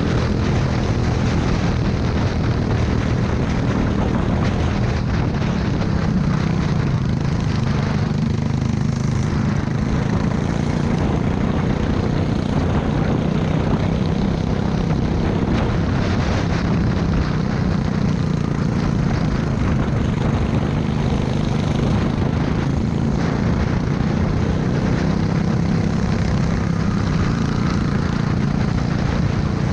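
Go-kart engine running hard at racing speed, heard up close from on board, its note rising and falling a little through the corners.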